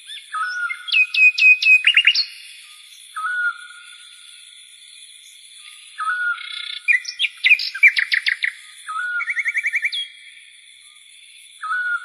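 Bird chirps and whistled calls: a short rising call repeats about every three seconds, with runs of rapid chirps about two seconds in and again around eight seconds in, over a steady high-pitched trill.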